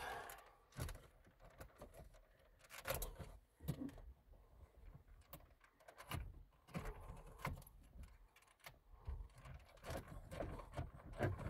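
Faint scattered clicks and plastic rattles from wiring-harness connectors being unplugged from behind a factory car radio, their push tabs pressed and pulled free, with hands rustling among the wires.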